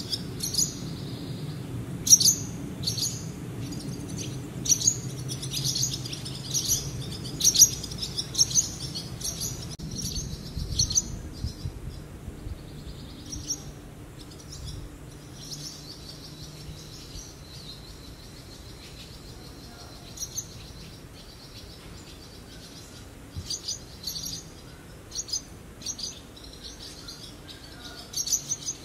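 Small birds chirping in quick, short high calls, many in the first half, fewer in the middle, and busier again near the end, over a low steady rumble.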